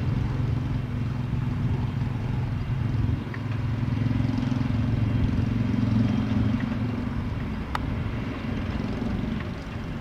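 Cessna Citation XLS+ business jet's twin Pratt & Whitney PW545 turbofans running at taxi power as the jet turns on the runway: a steady low rumble that swells around the middle and eases toward the end.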